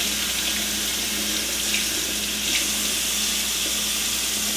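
Kitchen faucet running steadily into a sink as pieces of brined salmon are rinsed by hand under the stream.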